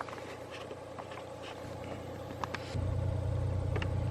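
Low steady rumble of a motor vehicle that steps up sharply in level about three quarters of the way through and then holds.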